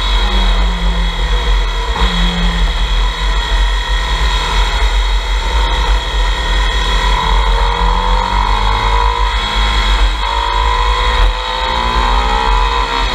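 Motorcycle engine on the move, its pitch rising and falling several times as the revs climb and ease through the bends. Heavy wind rumble on the bike-mounted camera's microphone runs under it.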